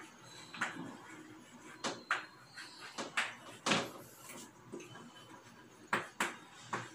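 Chalk tapping and scraping on a blackboard as words are written: a series of short, uneven taps and strokes, with one longer stroke a little past halfway.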